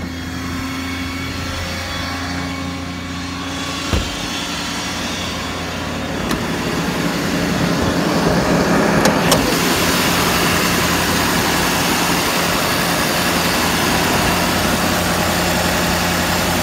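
Ford 6.7 L Power Stroke V8 turbodiesel idling steadily with the PTO engaged. A single sharp knock about four seconds in and another near nine seconds; from about eight seconds in the engine is louder and fuller.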